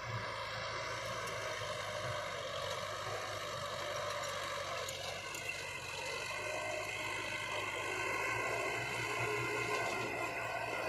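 Heavy diesel construction machine engine running steadily, with a slight change in its tone about halfway through.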